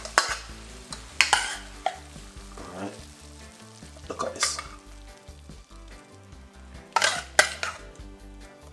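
A metal serving utensil scraping and clattering against a pan and a ceramic plate as stir-fried red cabbage is served, with the soft rustle of the cooked vegetables. There are several short scrapes, the loudest a close pair near the end.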